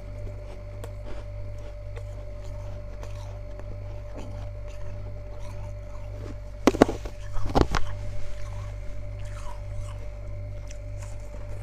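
Freezer frost being crunched, with two loud crunches and a few smaller crackles about seven seconds in, over a steady low hum.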